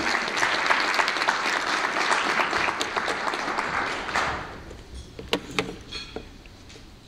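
Audience applauding, the clapping dying away about four seconds in; a few scattered knocks follow.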